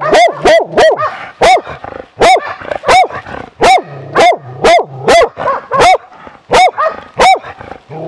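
Hunting dog baying a bear: loud, repeated barks close up, about two a second, each rising and falling in pitch.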